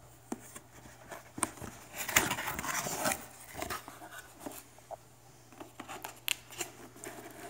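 Cardboard product box being opened by hand: a stretch of cardboard sliding and rubbing about two seconds in, amid scattered light clicks and knocks of handling.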